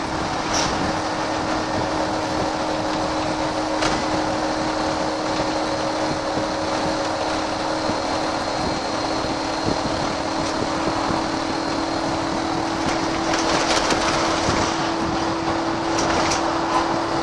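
VDL SB120 Wright Cadet single-deck bus running at a steady engine speed, heard from inside the saloon, with a steady drone and a few brief rattles and clicks.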